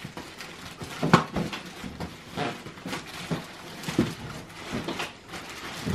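Plastic wrapping crinkling and cardboard scraping as a heavy car-seat base is pulled out of its box, with a few knocks against the cardboard.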